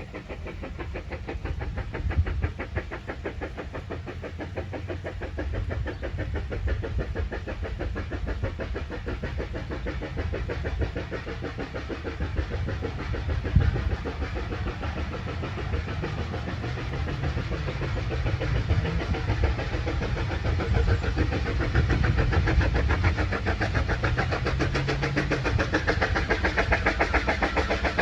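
Vale of Rheidol Railway narrow-gauge steam train running, with a fast, even beat that grows louder near the end.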